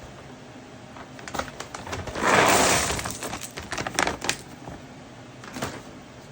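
Pumpkin seeds in the shell poured from a bag onto a pile of dry treat mix: a few scattered clicks, then a loud rattling rush of seeds for about a second, then more scattered clicks as the last seeds drop.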